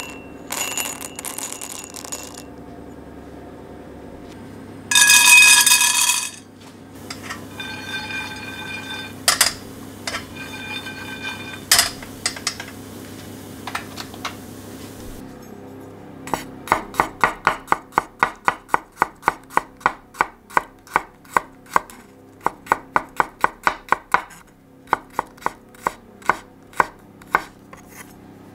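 A chef's knife chopping a garlic clove on a wooden cutting board, in quick even strokes of about three a second with a short pause, after earlier clinks and rattles of crockery and a steel frying pan.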